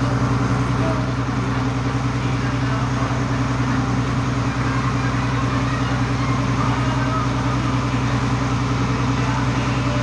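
Ferry boat's engine running steadily, a continuous low drone.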